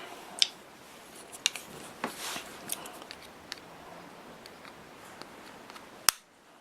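Small, sharp clicks and taps of handling a precision screwdriver and tiny hinge screws, with a short rustle about two seconds in. A sharper click comes near the end, after which the background hiss drops away.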